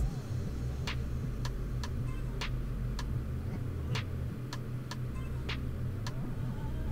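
A steady ticking, about two sharp clicks a second, evenly spaced, over a low steady hum.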